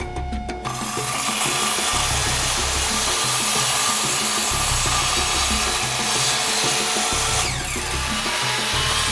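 Makita circular saw running and cutting through wood, a loud dense whine-and-rasp that starts just under a second in and holds steady, with background music underneath.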